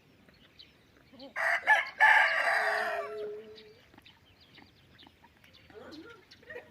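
A rooster crowing once, about a second and a half in: a call of about two seconds that ends on a falling note. Faint low calls follow near the end.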